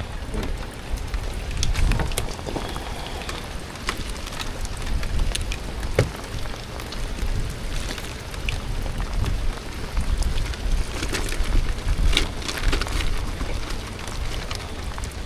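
Rain falling, a steady hiss with scattered sharp taps of drops landing close by.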